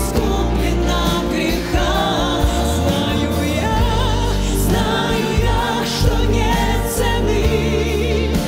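Live worship band playing a slow Russian-language worship song: women's voices singing the melody with vibrato and harmony vocals, over electric bass, guitars and keyboard.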